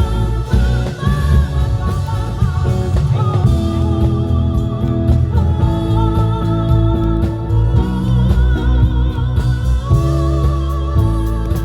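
Live rock band playing a Korean rock song, with drum kit, bass and electric guitar under a wavering lead melody line.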